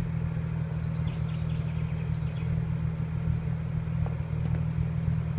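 Audi RS4 B5's 2.7-litre twin-turbo V6 idling steadily through an exhaust with the primary catalytic converters and middle silencer deleted.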